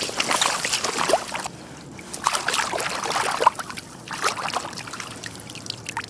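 Water splashing and sloshing in short spells as cleaned crab halves are swished back and forth and rinsed in shallow bay water.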